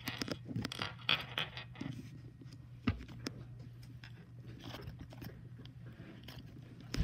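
Hands kneading and squeezing a ball of putty-like slime, giving a run of small crackling, scraping clicks, with a single knock about three seconds in.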